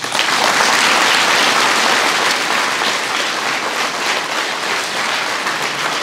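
Audience applauding. The clapping starts suddenly, is loudest over the first couple of seconds, then eases a little and carries on.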